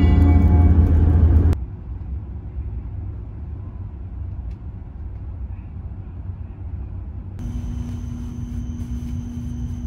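Background music that cuts off about a second and a half in, giving way to the low, steady rumble of a Shinkansen passenger car running. Near the end a steady hum joins the rumble as the train rolls slowly along a station platform.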